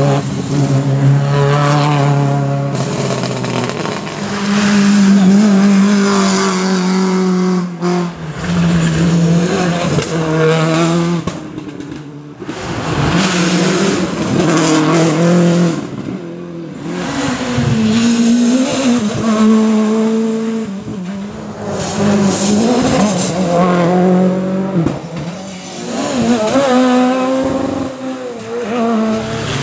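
Rally cars, among them Subaru Imprezas, driving through one after another at full throttle, engines revving high with pitch climbing and dropping at each gear change. Each car swells loud as it passes and fades before the next arrives.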